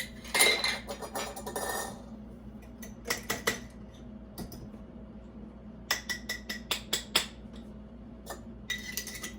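A utensil clinking and scraping against a jar and mixing bowl in several short bunches, as the jar's contents are emptied into cake batter; the last clinks ring briefly.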